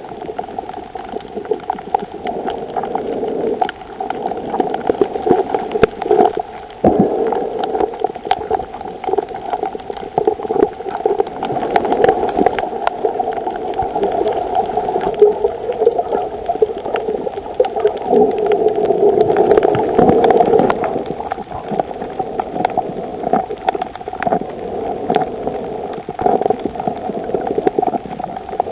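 Underwater sound on a coral reef picked up by a submerged camera: a steady, muffled churning water noise with many scattered clicks and crackles.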